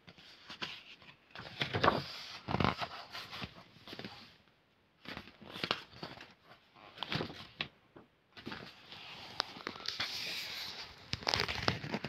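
Paper pages of a picture book being handled and turned: several irregular bursts of rustling and crinkling, with a few light taps and short pauses between them.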